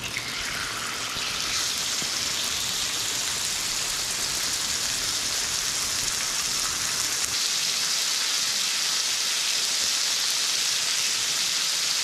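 Chicken pieces frying in hot oil in a pan on a camp flat burner: the sizzle rises quickly at the start as the meat goes in, then holds steady.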